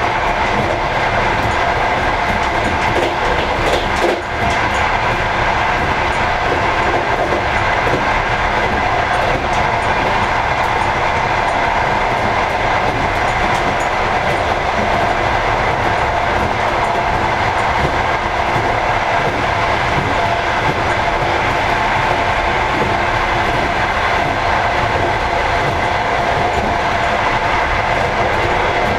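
Passenger train running at speed: steady running noise of wheels on the track, with one sharper knock about four seconds in.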